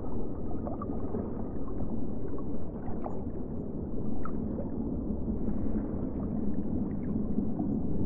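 Ocean water ambience: a steady low rush of water with small gurgles and faint brief squeaks scattered through it.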